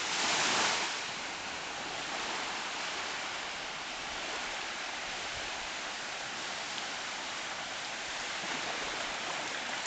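Sea surf on a sandy beach: small waves washing in as a steady hiss, with one wave breaking louder in the first second.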